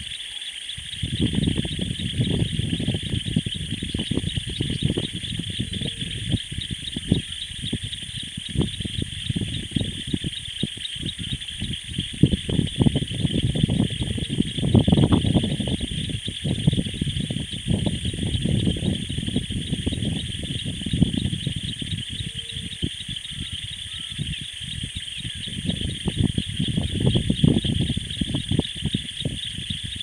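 Steady high insect chorus trilling without a break, over uneven low rumbling and crackling noise that swells and fades, loudest around the middle.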